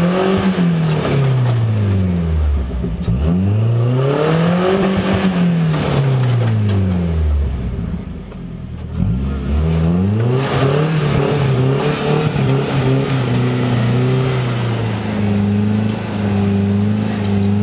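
Off-road Toyota truck engine revved up and back down three times in long swells as it works at a rock climb, easing off briefly about halfway, then held at a steady higher speed near the end.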